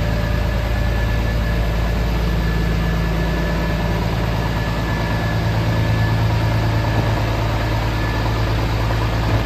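Scania S500 truck's 13-litre straight-six diesel idling steadily.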